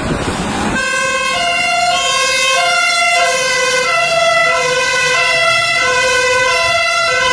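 German fire engine's two-tone siren, alternating steadily between a low and a high note about every half second, cutting in about a second in after a rush of noise.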